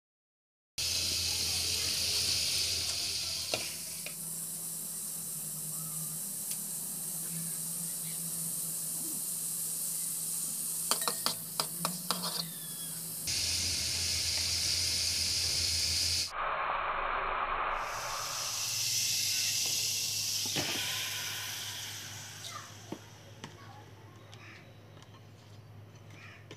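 Butter melting and sizzling in a steel cooking pot on a stove: a steady frying hiss over a low hum, with a quick run of clicks about halfway through. The sizzle fades to a quieter crackle near the end.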